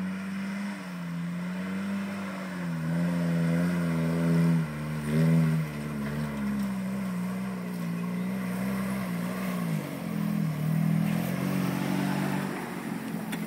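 A 1980 Toyota pickup's 20R 2.2-litre four-cylinder engine revving up and down as the truck drives through loose sand, its pitch rising and falling repeatedly and dropping sharply about ten seconds in before picking up again.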